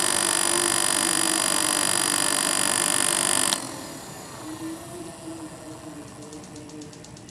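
Small DC motor fans of a homemade cardboard air cooler running with a steady whine, cut off suddenly with a click about three and a half seconds in. A much fainter hum and light ticking follow.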